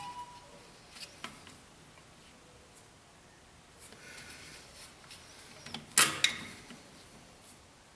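A hand pop-rivet tool being worked: a few light clicks and handling noise, then two sharp snaps about six seconds in as the rivet's mandrel breaks off and the rivet is set.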